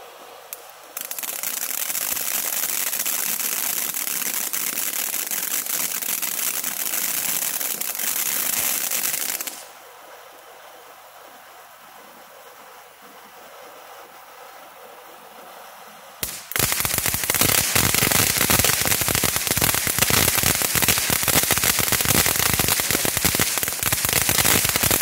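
TNT Fireworks Zombie Crawl consumer fountain burning. A steady hiss of sparks starts about a second in and drops away after about nine seconds. From about sixteen seconds on comes a louder, dense, rapid crackling.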